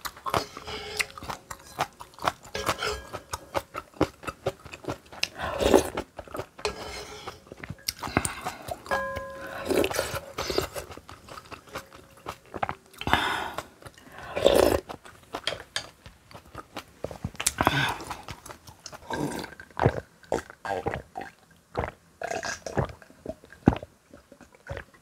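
Close-miked mukbang eating sounds: chewing and crunching of kimchi and noodles, with many small wet mouth clicks and a few louder bites.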